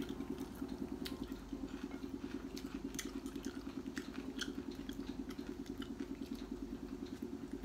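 A steady low motor hum with a fast, even pulse, under scattered faint clicks and smacks of eating by hand from a plate and chewing.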